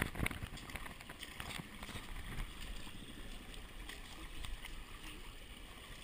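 Steady hiss of a shallow stream running over rocks, with scattered clicks and scrapes of shoes stepping on wet stones, the sharpest right at the start.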